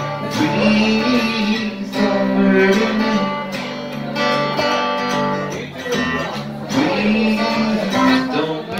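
Steel-string acoustic guitar strummed in chords, with a man singing held notes over it.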